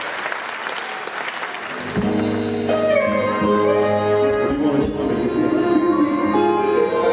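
Audience applauding, then about two seconds in a live rock band starts the song's intro, holding sustained chords.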